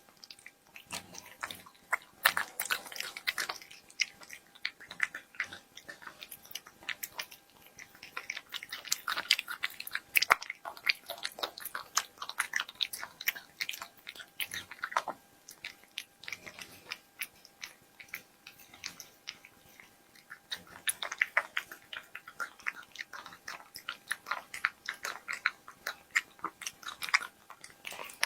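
A cat chewing and crunching its food close to the microphone: runs of quick, sharp mouth clicks and crunches, with short quieter pauses between bouts.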